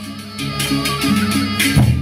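Gendang beleq ensemble of Lombok playing. The big barrel drums fall quiet while a short figure of stepping pitched notes plays over regular crisp clashes, then the heavy drum beats come back in just before the end.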